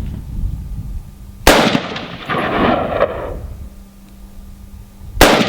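Rifle fire at Tannerite binary-explosive targets. A sharp blast comes about a second and a half in, with an echo rolling on for about two seconds. A second, louder blast comes near the end.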